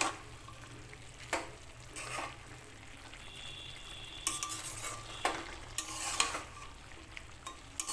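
Steel spatula stirring and scraping through cooked greens and potato pieces in a metal pan, a handful of separate scrapes over a soft sizzle from the simmering dish.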